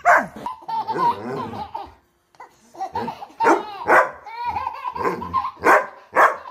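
A dog barks at the start. After a brief pause, a dog barks several times while a baby laughs between the barks.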